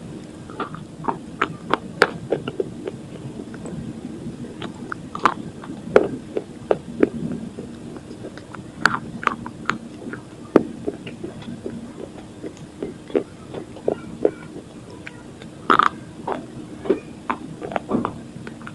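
Slate pencils coated in dried multani mitti (Fuller's earth) paste being bitten and chewed: irregular sharp crunches and snaps, a few of them louder.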